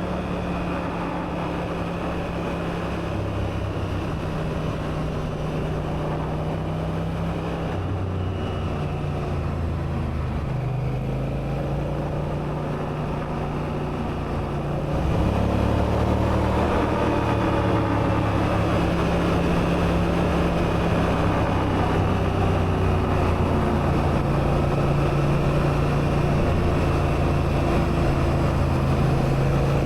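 Honda Africa Twin's parallel-twin engine running steadily while the motorcycle is ridden along a winding road. The engine note shifts in pitch a little before halfway, then gets louder about halfway through and stays louder.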